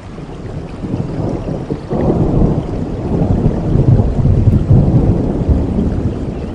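Thunder rumbling during rainfall, swelling about a second in and staying loud, over a steady hiss of rain.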